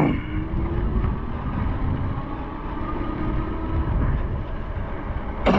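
Riding an electric bike: steady rumble of wind on the microphone and road noise, with a faint, slowly drifting whine over it. A sharp, loud noise comes near the end.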